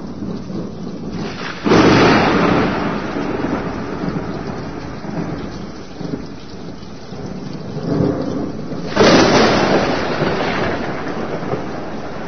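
Two rolls of thunder, one about two seconds in and a second, equally loud, near nine seconds, each starting suddenly and rumbling away slowly, over steady rain.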